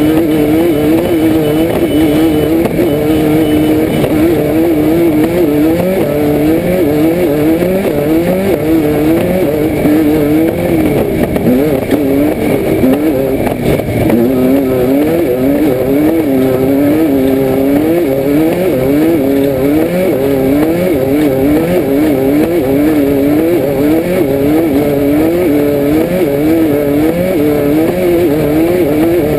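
Air-cooled Volkswagen 1600 engine of a Class 5/1600 Baja Bug under hard driving off-road, heard from inside the car. The revs climb and drop over and over, about once a second, as the throttle is worked over rough terrain.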